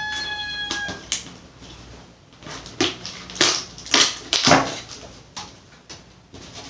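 Hard plastic clicks and knocks from handling a motorcycle helmet and its visor, a few irregular sharp snaps with the loudest in the middle.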